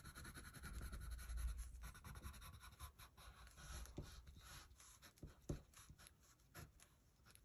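Gray colored pencil scratching faintly across drawing paper in many short, quick strokes.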